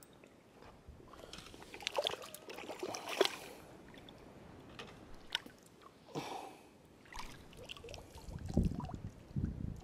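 A hooked carp thrashing and splashing in shallow water over rocks as it is grabbed by hand, with irregular splashes and sloshing, loudest about two and three seconds in. Near the end come a few low muffled thumps as the fish is handled.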